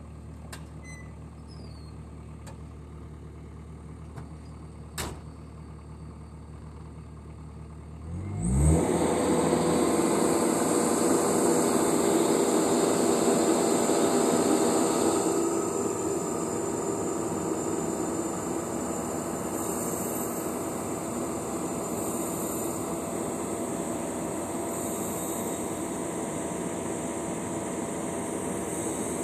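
Skid steer engine idling low, then throttled up about eight seconds in and running at high revs for the rest, easing slightly about halfway through, as the loader works to lift and dump a round hay bale.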